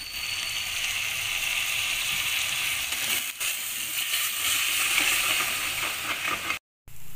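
Ivy gourd strips frying in oil with a little added water in a steel pan: a steady sizzle as they are stirred with a perforated steel spatula, with one knock of the spatula about three seconds in. The sound cuts out for a moment near the end.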